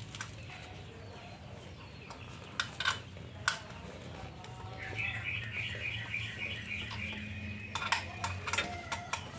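A hex key ticks against the bolts of a motorcycle's chrome spark-plug cover as they are loosened: a few sharp metallic clicks. A bird trills in the background for a few seconds past the middle.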